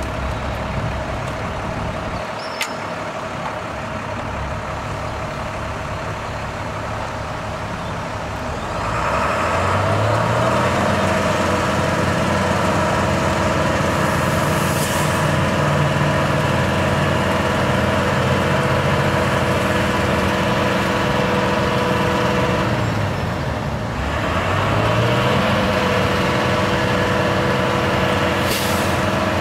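International MaxxForce DT diesel engine of a digger derrick truck running steadily, then speeding up about a third of the way in while the boom's hydraulics are worked. The engine speed drops briefly and comes back up about three-quarters of the way through. Two short hisses are heard, one midway and one near the end.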